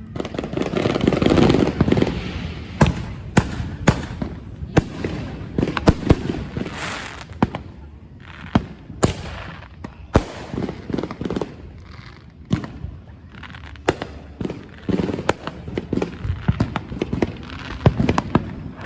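Fireworks going off: a louder rumbling burst in the first two seconds, then many sharp bangs and crackles at irregular intervals.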